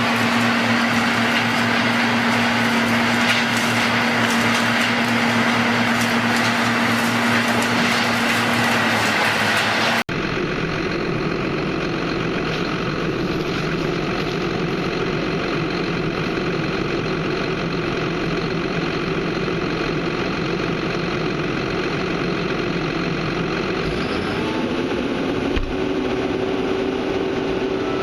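Heavy machinery engines running steadily, with an abrupt change to a different machine's engine about ten seconds in. Near the end the engine's pitch rises and then holds higher, as if it is taking on load.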